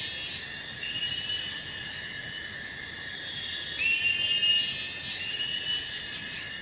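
Steady chorus of insects, with a whistle-like call about a second long repeated a few times over it.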